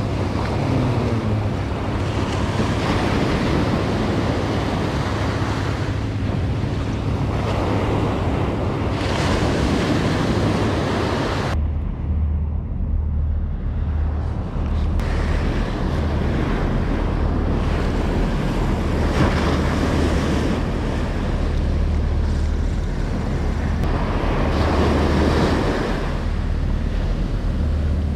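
Surf washing in and out at the shoreline, swelling and fading every few seconds, with wind rumbling on the microphone. About twelve seconds in the surf drops away for a few seconds, leaving mostly the wind rumble.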